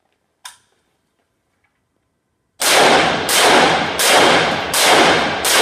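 AK-pattern rifle firing five shots in a steady rhythm, about 0.7 s apart, starting a little past halfway. Each shot echoes off the walls of an indoor range, after one faint click earlier.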